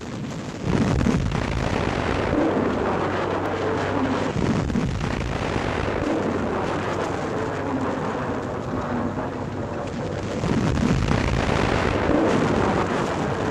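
Heavy railway gun firing: a sudden loud blast about a second in, then a long rolling rumble that swells again near the end.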